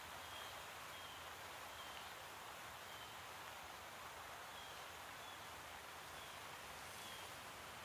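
Quiet outdoor ambience: a steady soft hiss with a small creature's short high chirp repeating roughly once a second.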